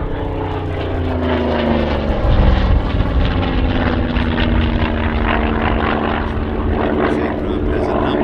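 Yak-3 with a Pratt & Whitney R-2000 fourteen-cylinder radial engine flying a display pass: the engine drone falls in pitch over the first two seconds or so as the aircraft goes by, then runs on steadily.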